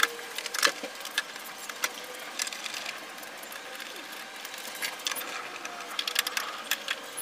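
Irregular clicks and knocks of plastic and metal engine-bay parts being handled and fitted back into place, over a faint steady hum.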